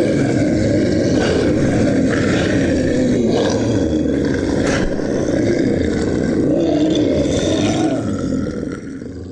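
Monster roar sound effect: one long, rough, continuous roar lasting about eight seconds, tapering off near the end.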